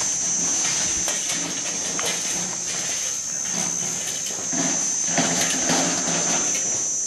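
Several people talking indistinctly in the open, their voices coming and going, over a steady high-pitched drone.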